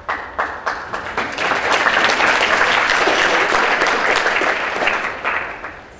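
Audience applauding: a few scattered claps at first, building to full applause, then dying away near the end.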